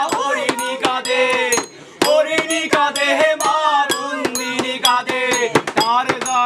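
Voices singing a Bengali song while hands beat out a quick rhythm of knocks on a wooden table used as a tabla. Everything stops briefly about two seconds in, then the singing and knocking start again.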